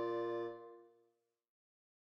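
Final held chord of two clarinets and a bassoon, played back by music notation software. It cuts off about half a second in, fades out over the next half second, and then there is silence.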